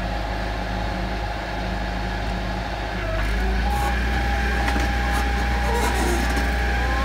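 Hitachi hydraulic excavator's diesel engine running, picking up load about three seconds in as the bucket digs into soil and lifts, with a steady high whine joining it from then on.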